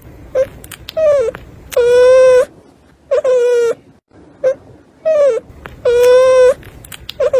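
Newborn puppy crying: a series of high-pitched whines, some short yelps and some drawn-out cries, with brief pauses between them.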